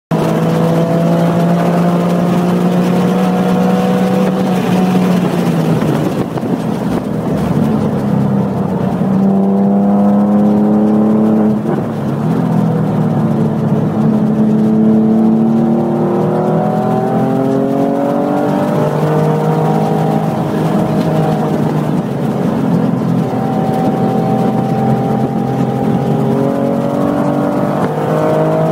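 A 2005 Porsche 911 GT3's flat-six engine, heard from inside the car at track speed. Its pitch climbs again and again under acceleration and falls back each time, over road and wind noise.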